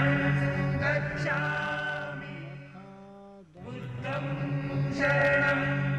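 Background music of men's voices chanting together on long held notes. It fades almost away a little before three seconds in and comes back about half a second later.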